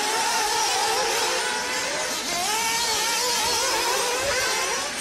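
Radio-controlled off-road car motors running on a track, their pitch wavering up and down as the throttle is worked.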